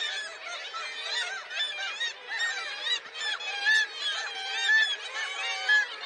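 Black-legged kittiwake colony calling, with many birds' calls overlapping into a continuous chorus and a few louder single calls in the second half.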